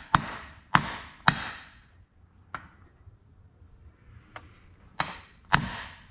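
Hammer striking the top of a steel pipe to drive a seized thrust bearing off its carrier: three sharp blows about half a second apart, a pause with a couple of light taps, then two more sharp blows near the end.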